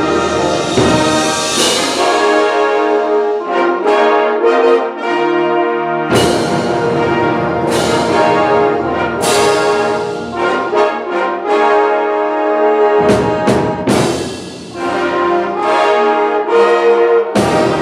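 High school symphonic band (trumpets, flutes, saxophones, tubas) playing a piece, with dense sustained chords. The low instruments drop out for a couple of seconds about four seconds in, then the full band comes back with strong accented chords, with several more such attacks later on.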